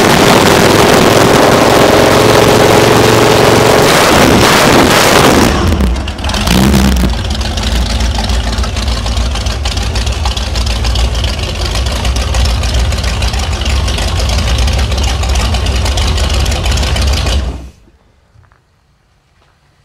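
Jet boat's 460 big-block V8 running at idle through open chrome headers, not revved, so loud that the microphone distorts for the first five seconds or so. It then settles into a steady low running sound, which cuts off sharply near the end.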